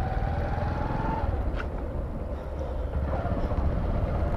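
Motorcycle engine running on the road, a steady low rumble with road and traffic noise and a faint tone that rises slightly in the first second.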